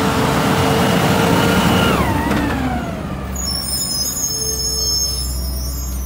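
Garbage truck's diesel engine running as it drives by, its tone dropping in pitch about two seconds in. A high brake squeal joins from about three to five seconds in.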